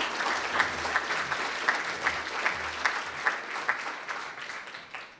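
Audience applauding: a dense, even clapping from many hands that thins out near the end.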